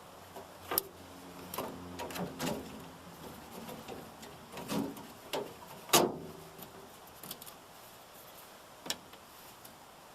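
Scattered clicks and knocks, loudest about six seconds in, with a few short squeaks early on, as a pickup's taillight assembly and bulb socket are handled and put back in.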